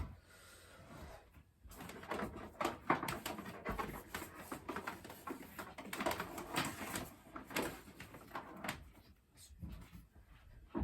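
Hands working wires and a fixture: a busy run of rustles, small clicks and knocks starting a couple of seconds in and easing off near the end.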